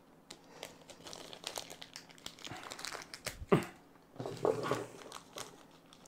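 Crinkling and rustling of packaging, with scattered small clicks and taps from PC parts being handled, and a sharper knock about three and a half seconds in.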